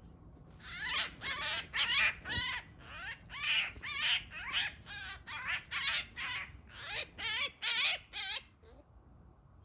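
Eurasian magpie giving a rapid series of harsh distress calls, about two to three a second, while pinned under an attacking sparrowhawk. The calls start about half a second in and stop shortly before the end.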